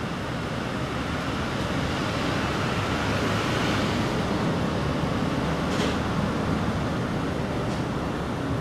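Steady rumbling background noise that swells and fades about three to four seconds in, with a faint click near the end.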